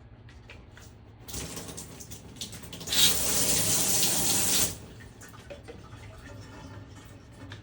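JOMST handheld shower head spraying water. A softer spray starts about a second in, turns much louder about three seconds in, and cuts off suddenly a little past halfway.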